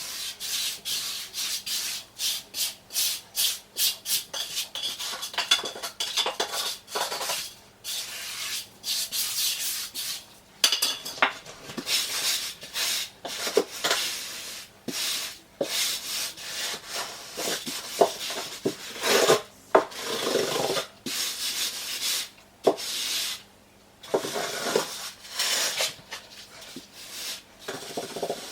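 Repeated scraping and rubbing strokes of a tool dragged across a dry-pack mortar shower-pan bed as it is levelled and compacted. The strokes come quick and regular, about two a second, for the first few seconds, then turn irregular.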